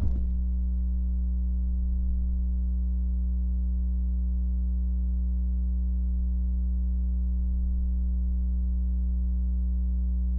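Steady low electrical hum with a row of fainter higher overtones, holding unchanged in pitch and level.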